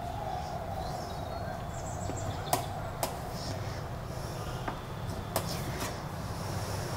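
A kitchen knife cutting a tomato on a steel plate, with a few scattered sharp clicks of the blade against the metal over a steady low hum.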